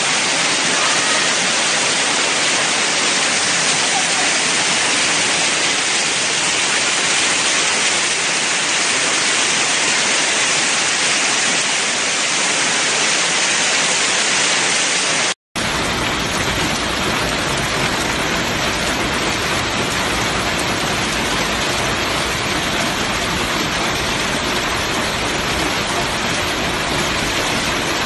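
Hailstorm: hail and rain pelting the street and parked cars in a dense, steady hiss. It breaks off for an instant about fifteen seconds in, then comes back with more low rumble.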